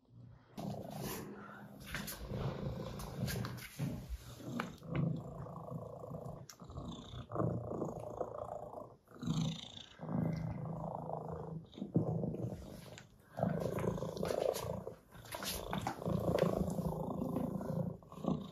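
A domestic cat purring steadily, the purr swelling and dipping with each breath about every one to two seconds.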